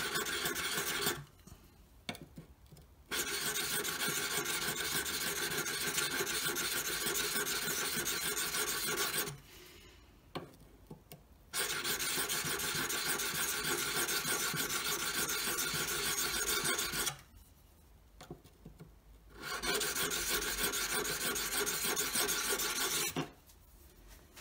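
Steel bevel of a 3/4-inch Robert Sorby skew chisel rubbed in small circles on a card file wet with Windex: a steady scraping in four spells with short pauses between. The rubbing is raising an even burr along the cutting edge.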